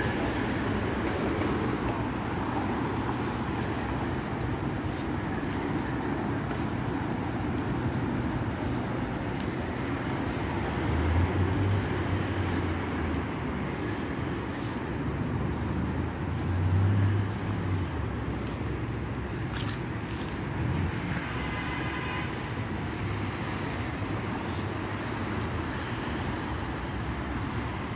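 Steady rumble of city road traffic, with a couple of louder passes.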